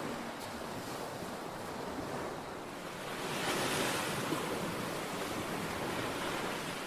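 Ocean surf with wind: waves washing in a steady hiss, one wave swelling about three seconds in and slowly ebbing.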